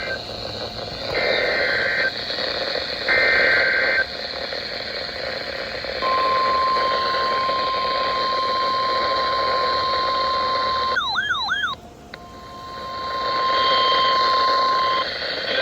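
Emergency Alert System header over weather radio: two one-second bursts of buzzy two-pitch SAME data tones, then the steady 1050 Hz NOAA Weather Radio warning alarm tone. The tone breaks for about a second into a warbling tone that rises and falls, then resumes for about three seconds, over radio hiss.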